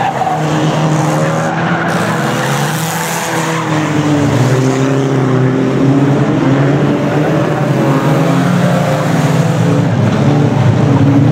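Several banger racing cars' engines running hard together, their pitches rising and falling as the cars race round an oval circuit, growing louder over the last few seconds.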